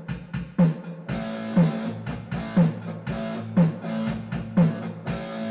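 Intro music with a steady drum beat about once a second; sustained chords come in about a second in.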